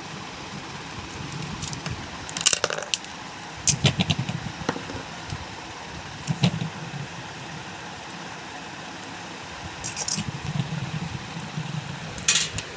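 Scattered metallic clinks and clatter of hand tools and metal fan parts being handled while a ceiling fan is dismantled, with low rubbing and handling noise between the clinks.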